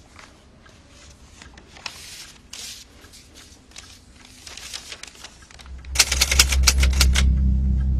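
Paper rustling and crackling as an envelope is opened and a folded letter drawn out and unfolded. About six seconds in, a loud low rumble sets in, with a quick run of sharp rattling clicks over it for a second or so.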